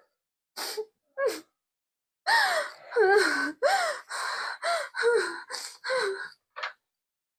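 A person sobbing and gasping: high, breathy wailing cries that fall in pitch, two short ones and then a quicker run of cries.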